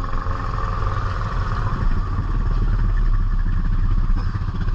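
ATV engine running steadily, a low drone with a noisy upper layer.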